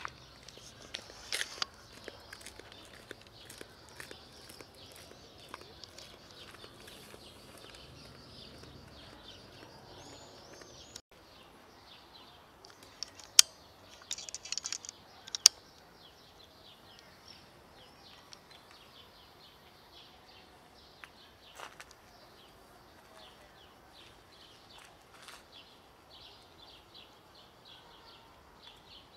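Quiet outdoor ambience with faint bird chirps and many small scattered clicks. A few sharper clicks and a short hiss come about halfway through.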